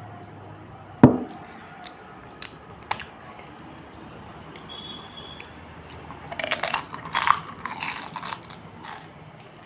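Close-up crunching and chewing of crisp food, most likely pani puri shells breaking in the mouth, in a burst of crunches from about six to nine seconds in. A sharp knock sounds about a second in.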